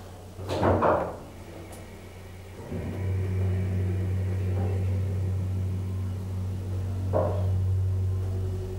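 Hydraulic elevator's pump motor starting up about three seconds in and then running with a steady low hum as the car begins to move. A thump comes about a second in, and a brief knock near the end.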